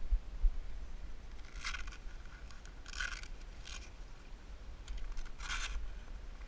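Fabric boat cover being handled as its straps are undone and it is pulled back: a few short scratchy rustles and scrapes of the cloth.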